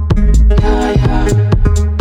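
Background music: an electronic track with a steady drum-machine beat and bass.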